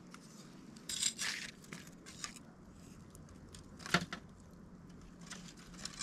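Wood campfire crackling, with a short flurry of crackles about a second in and one sharp pop about four seconds in.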